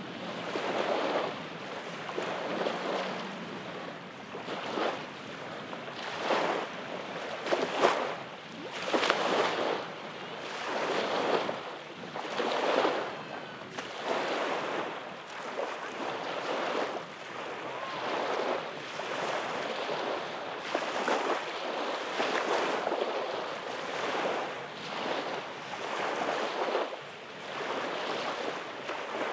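Small waves lapping and breaking on a sandy beach, a wash of surf every second or two.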